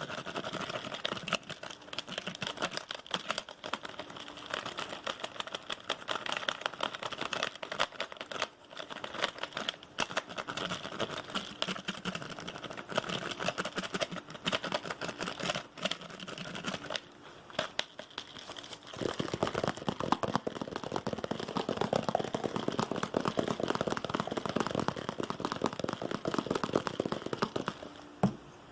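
Fast, aggressive ASMR tapping: a dense, continuous patter of quick taps and scratches on hard objects. It turns fuller and lower from about two-thirds of the way in.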